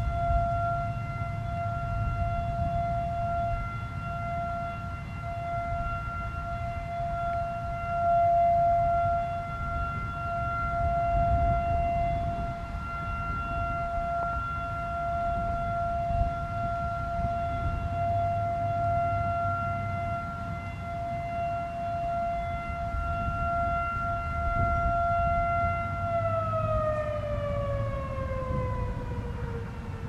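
Federal Signal 2001-SRN electromechanical outdoor warning siren holding a steady alert tone, then winding down about four seconds before the end, its pitch falling as the rotor slows.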